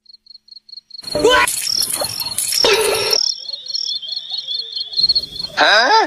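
High-pitched, rapidly pulsed chirping like a cricket's trill, with louder noisy sounds between about one and three seconds in and a call rising in pitch near the end.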